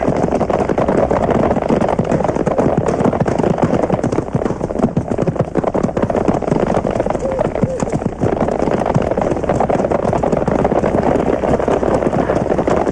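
Film battle-scene soundtrack: a loud, dense, continuous clatter and rumble of many fast irregular strokes, with shouting voices.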